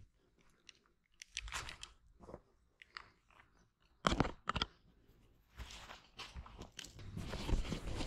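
Footsteps crunching through dry leaf litter and twigs, uneven steps with two louder crunches about four seconds in, turning into denser rustling near the end.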